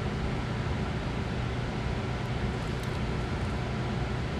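Steady low hum and hiss of background noise, like a fan or air conditioner running, with a couple of very faint ticks partway through.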